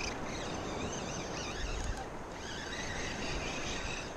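Wind buffeting the microphone over the wash of shallow surf water, with a brief low rumble of wind just before the middle. A faint high whine wavers up and down through it.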